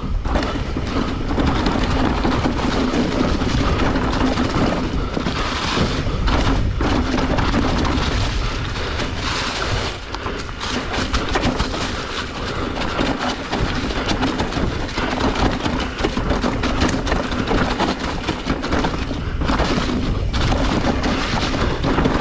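Mountain bike riding fast down a steep, leaf-covered dirt trail: a steady rush of wind and tyres rolling over leaves and dirt, with continual small knocks and rattles from the bike over roots and rocks.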